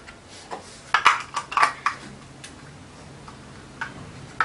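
Plastic clicks and crackles of a small inkjet cartridge being handled and turned in the hands, a quick cluster about a second in, then a few faint ticks.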